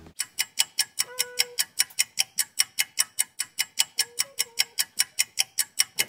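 Clock ticking fast and evenly, about five sharp ticks a second, starting abruptly.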